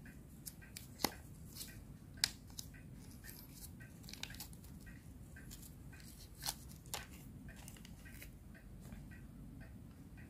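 A metal fork cutting into an okonomiyaki in a paper takeaway box, and a small plastic sauce sachet being torn open and squeezed. These come through as a series of faint clicks, taps and crinkles, the sharpest about a second in, about two seconds in and around six and a half to seven seconds in.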